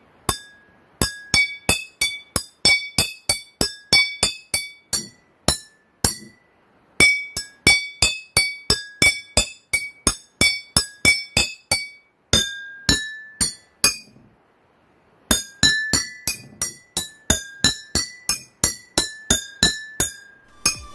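Metal spoon tapping glass jars and a drinking glass filled with water to different levels, each strike ringing on at its own pitch set by the water level, played as a quick run of notes like a tune. The playing pauses briefly twice, about six and fourteen seconds in.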